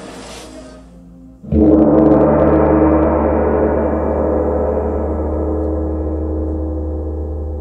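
A gong struck once about a second and a half in, its deep ring slowly fading.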